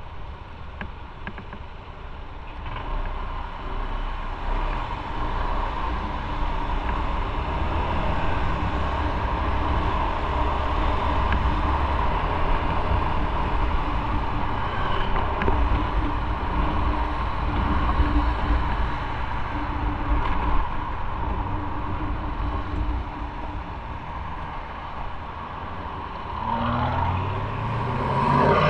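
Motorcycle riding in city traffic, heard from the bike. Engine and road noise build as it pulls away from a stop about three seconds in and then run steadily. A rising and falling engine note comes near the end as it slows behind traffic.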